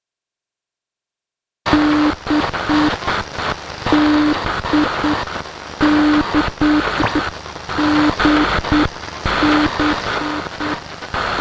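Morse code sent as a low beep tone, keyed in short dots and longer dashes over loud crackling static. It starts after about a second and a half of dead silence.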